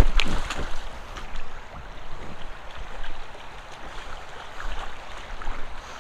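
Creek water flowing steadily, with footsteps along the bank making short knocks throughout, the sharpest right at the start.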